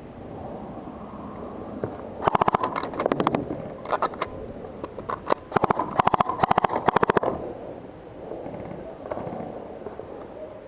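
Airsoft guns firing several rapid full-auto bursts of sharp, evenly spaced shots, mostly between about two and seven seconds in, over a steady outdoor background.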